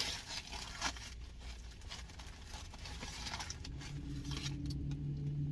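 Paper and cardboard takeout food packaging being handled: irregular rustling and scraping that thins out toward the end. A steady low hum comes in about four seconds in.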